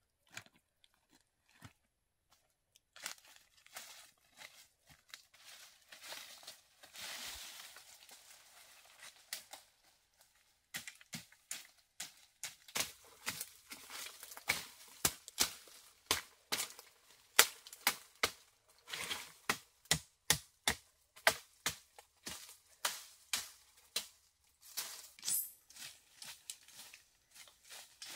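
Machete hacking at undergrowth: a long run of sharp, irregular cracks, one or two a second, starting about ten seconds in, with dry leaves and twigs rustling and crackling before and between the strikes.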